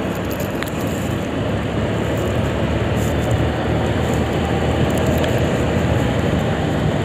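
Steady riding noise from a Suzuki scooter cruising at an even speed: its small engine running, blended with wind and road rumble, with no sudden events.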